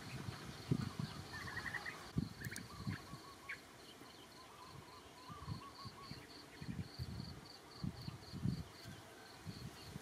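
Cricket-like insect chirping in a steady high pulse, about three to four chirps a second, over irregular soft low thumps and rustles. A few faint short high chirps come in the first few seconds.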